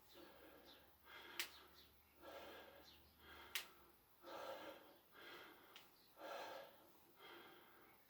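A person breathing hard from exercise, one puff of breath roughly every second, with two sharp clicks in between.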